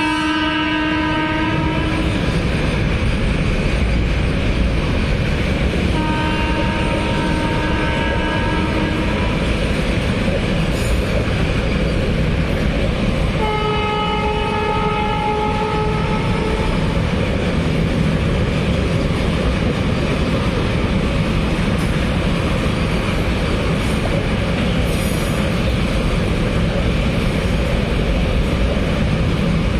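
Long container freight train hauled by a WAG12B electric locomotive rolling past, with a steady heavy rumble of wheels and wagons on the rails. A train horn sounds three long blasts: one ending about two seconds in, another a few seconds later, and a higher-pitched one about halfway through.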